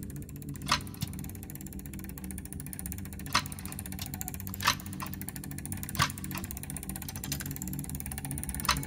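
Clockwork ticking: a rapid, even run of fine ticks, with five louder clicks spread through it, over a steady low drone.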